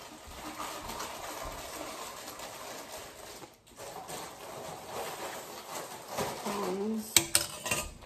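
Handling noise of packaged shopping items, ending in a few sharp metallic clicks and clatters near the end, as of metal kitchen tongs being handled and set down.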